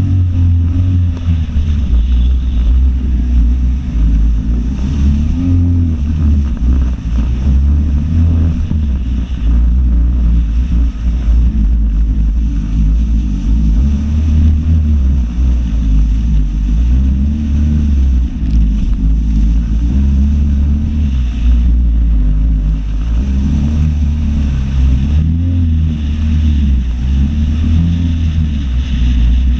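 Personal watercraft (jet ski) engine running under way at speed, its pitch rising and falling every second or two as the craft rides over the water. Wind rushes over the microphone.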